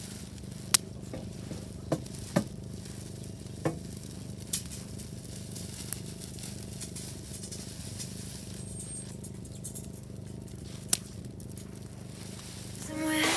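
Dry grass and twigs burning in a steel drum fire pit: a steady crackling hiss with scattered sharp pops, a few of them much louder than the rest.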